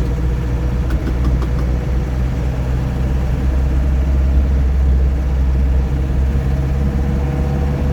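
Land Rover Series III engine running steadily with the vehicle under way, a continuous low drone, with a few light clicks about a second in.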